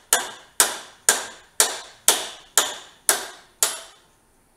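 Repeated hammer blows, about two a second, on the front end of a 1972 Honda CT70 minibike to knock a stuck part loose. Each blow rings briefly. There are eight in a steady rhythm, stopping a little before the end.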